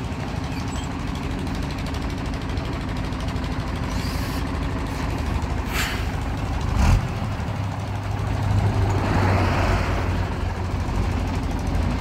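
A loaded heavy truck's diesel engine running as the truck drives slowly past. About halfway through come two short, sharp hisses of air from its air brakes, and the engine grows louder a couple of seconds later.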